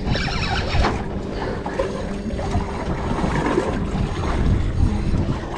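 Wind buffeting the microphone on a boat at sea, a steady low rumbling noise with water around the hull beneath it.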